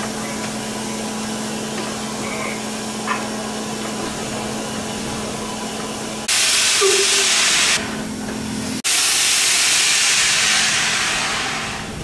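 Class 52 steam locomotive on a turntable: a steady hum, then about six seconds in a loud hiss of escaping steam that cuts off after a second and a half. A second long steam hiss starts a second later and fades near the end.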